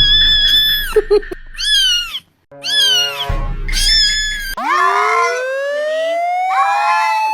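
Cat meows from a cat-meme sound clip: several long, held meows, some over a low thumping beat. About four and a half seconds in, a slowly rising siren-like wail starts, with shorter meows over it.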